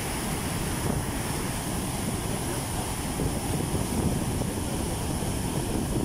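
Waterfall: a large volume of water pouring over rock ledges and crashing into a churning pool, a loud, steady rushing with a deep rumble.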